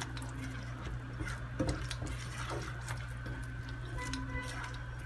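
Silicone spatula stirring a milky onion-and-tomato sauce in a nonstick pot, with soft scattered clicks and scrapes against the pan over a steady low hum.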